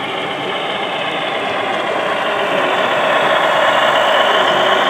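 HO scale model diesel locomotive running past with an engine-like diesel rumble, growing louder as it nears about four seconds in.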